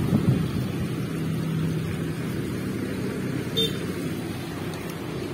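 Steady low hum of motor-vehicle engines from road traffic, with a faint brief click partway through.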